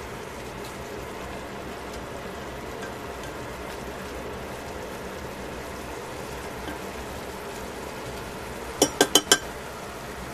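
Vegetables in broth simmering and bubbling steadily in a stainless steel pot while being stirred with tongs. Near the end come four quick, sharp clicks from the tongs.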